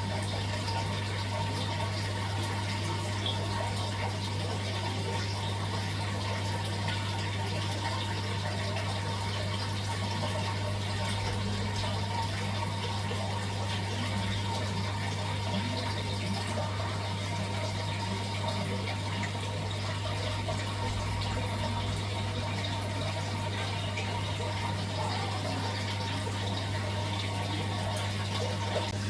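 Aquarium pump or filter humming steadily, with water bubbling and trickling in the tank.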